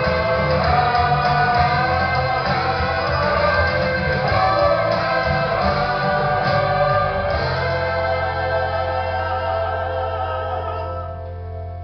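Live rock band music with singing, played through the theater's sound system. About two-thirds of the way through the beat drops out, leaving a held low note and sustained chords that ease off near the end.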